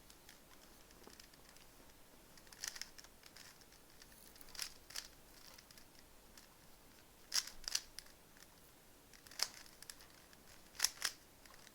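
Rubik's Cube faces being twisted by hand: short plastic clicks and snaps, singly or in quick pairs, every second or two.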